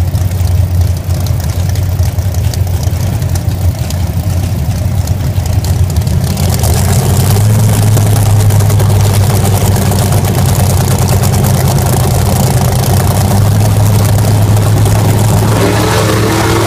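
Drag cars, a second-generation Chevrolet Camaro and a GM G-body, idling loudly side by side at the starting line with a steady low engine note that grows louder about seven seconds in. Near the end an engine starts to rev, climbing in pitch as the launch begins.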